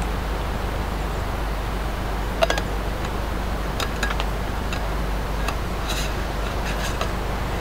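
Steady rain hiss with a scattering of short, sharp ticks and taps, the loudest about two and a half seconds in.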